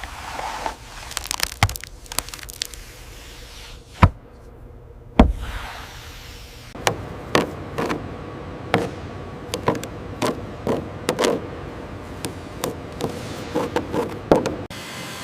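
A series of sharp knocks and bangs: two loud bangs about four and five seconds in, then a run of irregular, quicker knocks over a low steady background.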